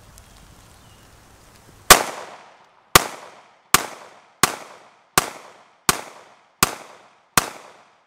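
Sig Sauer P365 9mm pistol fired eight times in quick succession. The first shot comes about two seconds in, then the rest at a steady pace of about three shots every two seconds, each report trailing off in a short echo.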